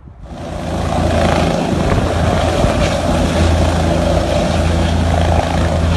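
Helicopter running on the ground, its engine and rotor making a loud, steady noise. The noise comes in sharply just after the start and reaches full level within about a second.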